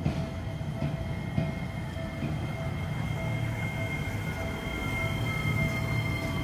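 Seibu 8500 series rubber-tyred automated guideway train running, heard from inside the car: a low rumble under two steady high electrical whines. About halfway through, a tone begins that slowly falls in pitch, while a short tone pulses on and off.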